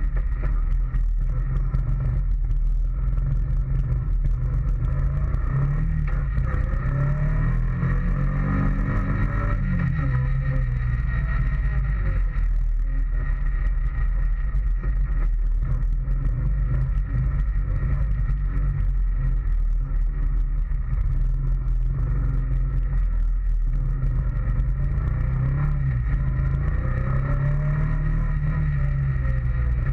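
2013 Honda Foreman ATV's single-cylinder engine running under way, heard close up from the front rack. Its pitch rises and falls as the throttle is opened and eased, about a third of the way in and again near the end.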